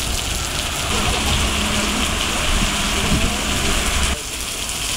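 Heavy rain pouring onto a wet street, a steady hiss, with a low rumble underneath that cuts off about four seconds in.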